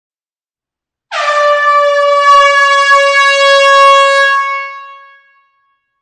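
A single long air horn blast in an enclosed hall: one steady note that starts about a second in, holds for about three and a half seconds, then dies away.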